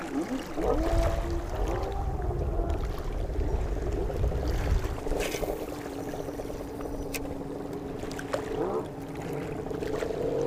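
Spinning reel being cranked to retrieve a lure, its gears whining in a wavering pitch, over wind rumble on the microphone through the first half. From about six seconds a steady low hum holds.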